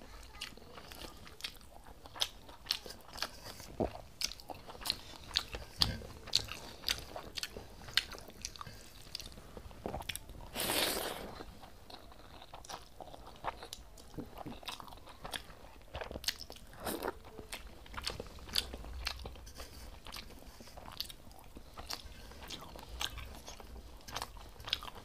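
Close-up eating sounds of a person chewing a mouthful of rice and curry eaten by hand, with crunching and sharp mouth clicks about once or twice a second, and one longer, noisier sound about ten seconds in.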